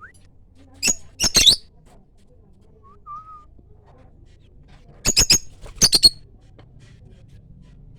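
Pet parrots giving short, sharp, high-pitched shrieks in quick clusters: a few about a second in, then two rapid runs of three around five and six seconds in, with one short soft whistle between them.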